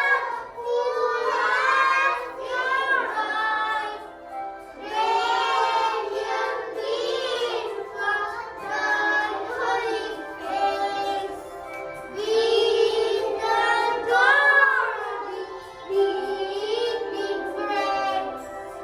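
Young children singing a Christmas song in high voices, phrase after phrase, with brief breaks between the lines.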